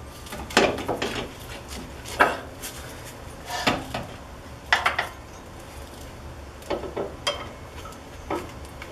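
Metal clanks and knocks of a new coil-spring strut assembly being worked into place against the front suspension and its mounts, about seven separate knocks at uneven intervals.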